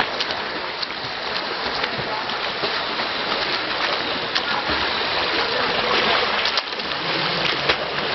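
Pool water splashing as a swimmer swims front crawl close by: a steady wash of churning water with many small, sharp splashes from the arm strokes and kicks.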